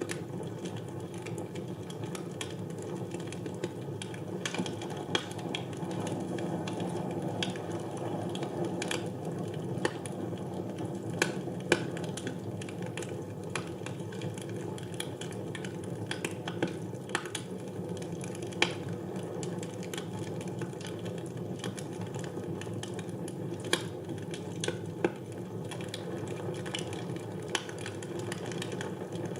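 Wood fire burning in a fireplace: a steady low rush of flames with irregular crackles and a few sharper pops.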